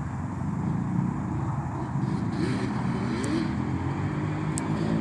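ATV engine running steadily, a low continuous engine sound.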